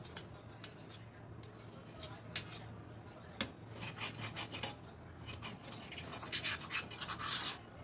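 A spoon scraping and knocking against a kadhai while stirring and gathering thick besan paste, in scattered strokes that grow into a denser run of scraping near the end. A faint low hum sits underneath.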